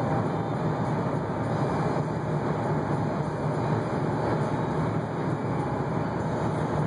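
Steady in-cabin drone of a Jeep Grand Cherokee's 5.7 L Hemi V8 and road noise, cruising at highway speed at about 2,000 rpm. The Multi-Displacement System is engaged, so the engine is running on four of its eight cylinders.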